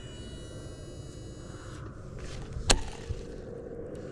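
Baitcasting reel spool spinning out on a cast, a thin high whine that fades away over the first two seconds. About two and a half seconds in a sharp click as the reel is engaged, then a steady low hum as line is reeled in.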